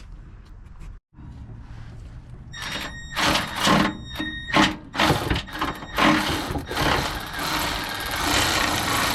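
Old engine oil draining out of the drain hole into a drain pan: a steady rushing splash that fills the last three seconds, after a few seconds of short scraping and clattering noises as the drain plug comes out.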